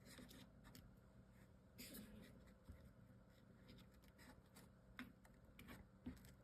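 Near silence with faint, scattered rustles and taps of chipboard and paper craft pieces being handled and lined up.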